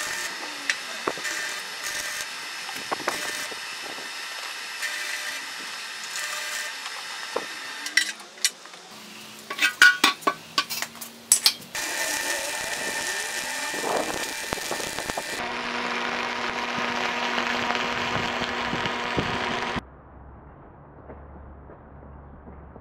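Stick arc welding on steel car rims, a crackling, spitting arc heard in several separate stretches. In the middle comes a quick run of sharp metallic clicks and knocks, and near the end the sound drops to a faint low hum.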